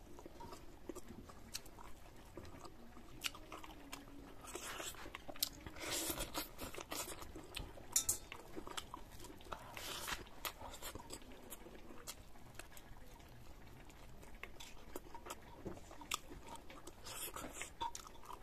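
Close-up chewing of a mouthful of rice eaten by hand, with scattered crunches and mouth clicks, busiest in the middle and again near the end.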